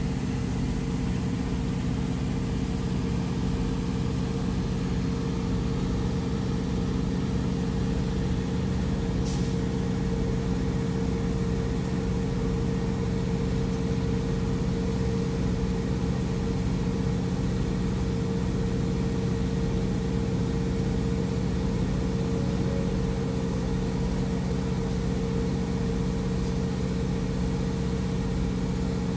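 Diesel semi-truck engine idling, heard from inside the cab: a steady low drone with an unchanging hum. A brief high tick about nine seconds in.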